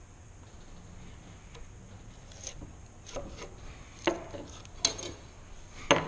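Faint scraping of a steel bench chisel paring wood in a groove in a board. Then three sharp clacks about four, five and six seconds in, the last the loudest, as the chisel is laid on the wooden bench and a metal combination square is handled against the board.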